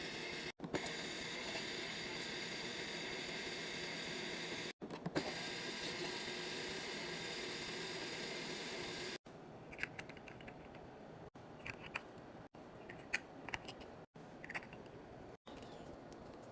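Snacks and drinks being handled while restocking a mini fridge. A steady hiss fills the first half, then scattered clicks and clacks of packaging and containers follow.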